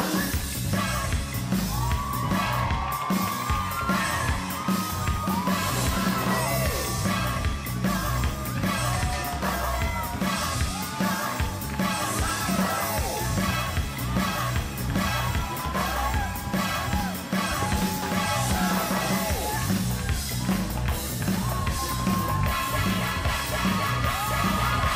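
Funk song with a steady drum and bass beat and a high melody line, with shouts and whoops over it.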